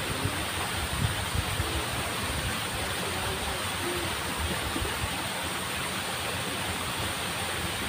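Steady rush of water flowing in a small ditch.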